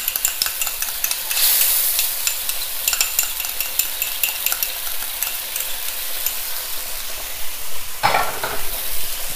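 Onions, spring onion and beef stock sizzling and crackling in a hot wok as oyster sauce is spooned in, with a louder burst of sizzle about a second and a half in.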